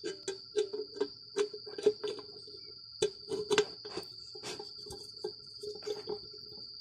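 A detachable plastic handle clicking and knocking against the metal bracket of a nonstick cooking pot as it is fitted and locked on. The clicks come in quick runs, one in the first second and another from about three to four and a half seconds, and they sound over a steady high-pitched whine.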